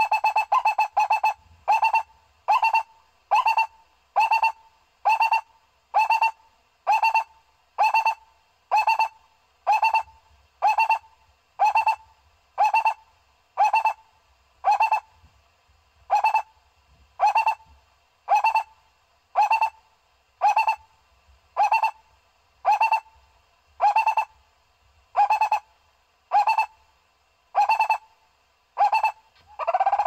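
Barbet calling: one short pitched note repeated at a steady even pace, about one and a half notes a second.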